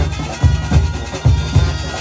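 Junkanoo band playing: big goatskin drums beating a steady, heavy rhythm of about two to three strokes a second, with a held high note sounding above them.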